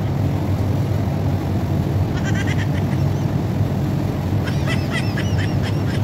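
Steady low hum of a rooftop air-conditioner condenser unit running. Two short runs of high chirps and clicks come through, about 2 seconds in and again from about 4.5 seconds.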